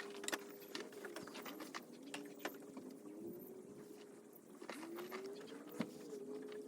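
A dove cooing faintly, low coos that rise and fall in pitch, with a few light clicks and taps.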